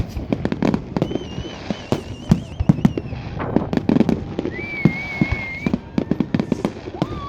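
New Year's fireworks and firecrackers: a dense, irregular stream of bangs and crackles, with two long wavering whistles among them.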